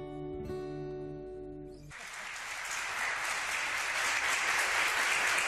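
The final chord of a live song rings out on guitar, struck once more about half a second in, then cuts off about two seconds in as studio audience applause breaks out and grows louder.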